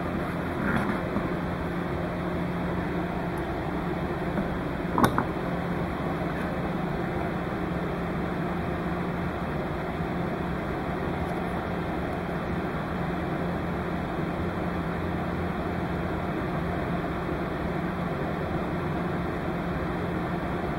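Steady background hiss with a low hum, like a fan or air conditioner running, and one brief knock about five seconds in.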